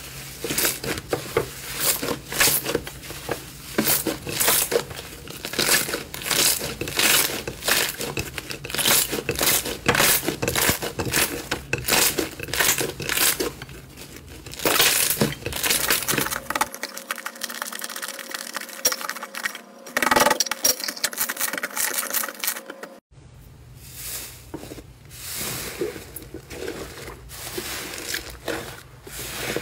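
Slime being squeezed and kneaded by hand, giving a fast, irregular run of sticky crackles, pops and squelches as air pockets burst. The sound breaks off briefly about two-thirds of the way through.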